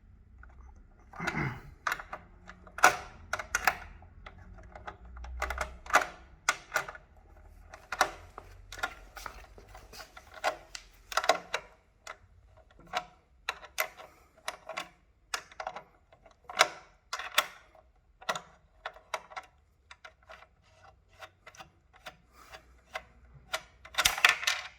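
Irregular small metallic clicks and clinks of a size 10 wrench working the bolts that hold the motor phase wires of an electric unicycle, sometimes in quick runs, with a louder cluster near the end.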